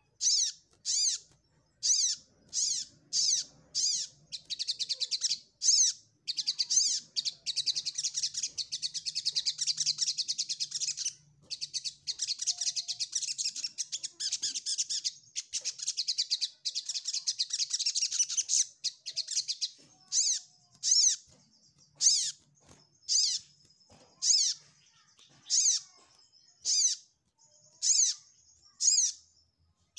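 Male olive-backed sunbird singing its challenging song. High, sharp calls come about once or twice a second, then run together through the middle into long, fast twittering phrases several seconds long, and break back into separate calls near the end.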